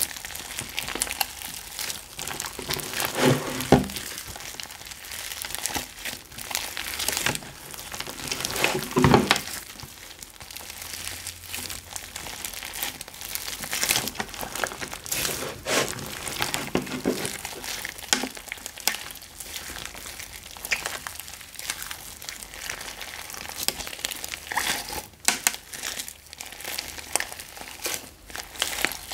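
Hands kneading and squeezing thick slime mixed with clay: a steady sticky crackling and squishing with many small pops. There is a louder squelch about three seconds in and another about nine seconds in.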